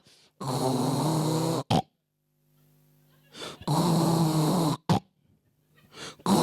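A person imitating loud snoring: two long snores of about a second each, each ending in a short catch, with a third starting near the end.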